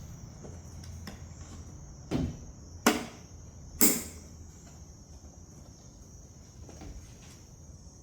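Three sharp plastic clicks between about two and four seconds in, as the taillight's wiring harness connector is handled and clipped back on. Under them, steady high-pitched cricket chirping.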